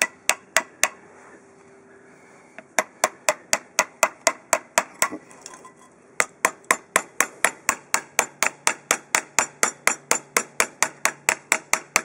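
Hammer tapping on a steel socket used as a driver, pressing a rubber slide-pin boot into its press-fit bore in a brake caliper bracket. The taps come as sharp metallic strikes: four quick ones at the start, then after a pause a run of about four a second, a short break, and a longer steady run of the same pace.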